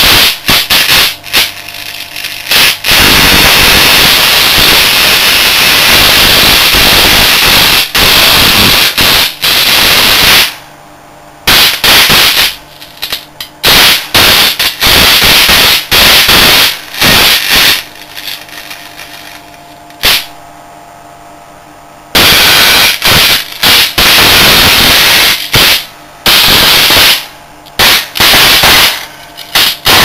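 High-voltage arcs from a rig of microwave-oven transformers burning across the wet innards of a waterlogged photocopier: loud crackling discharges in long bursts and short snaps, stopping and starting, with a low steady hum in the pauses.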